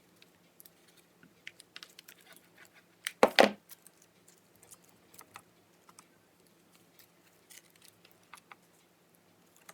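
Dry leaves being handled and pressed onto a glued popsicle-stick frame: scattered faint crinkles and light taps, with one louder rustle in two quick parts about three seconds in.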